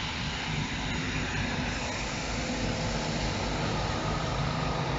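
Trenord diesel railcar running past at close range: a steady diesel engine hum under rolling wheel and rail noise.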